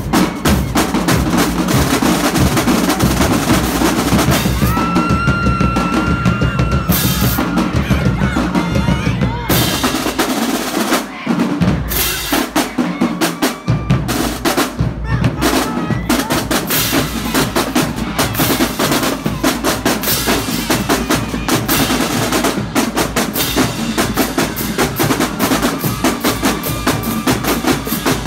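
Marching drumline playing a fast cadence of rapid strikes on snare drums and bass drums, with hand cymbals clashing.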